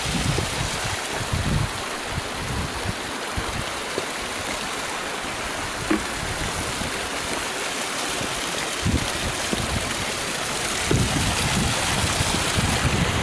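A small spring-fed mountain stream cascading over rocks, a steady rush of water. Gusts of wind rumble on the microphone now and then, more strongly near the end.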